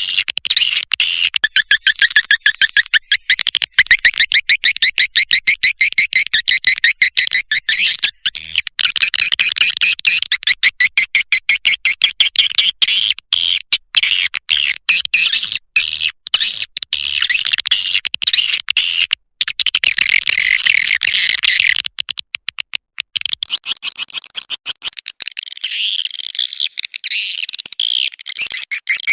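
Swiftlet call recording of the kind played as a lure to draw swiftlets in to roost: rapid trains of high, buzzy chirps, shifting to a looser, more varied twittering about three-quarters of the way through.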